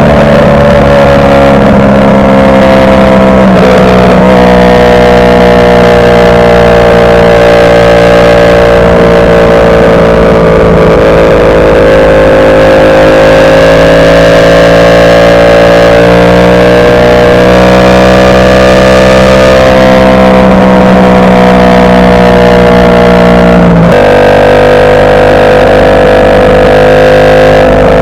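Ducati Panigale V4 S's V4 engine running under way at a fairly steady pace. Its pitch eases down over the first dozen seconds, then climbs slowly, with abrupt pitch steps about four seconds in and again about 24 seconds in, where it drops sharply as at a gear change.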